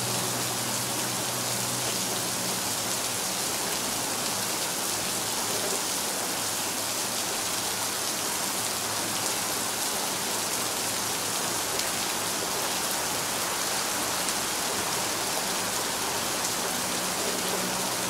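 Steady, heavy rain: a dense, even hiss of falling drops. A soft held chord beneath it fades away over the first few seconds.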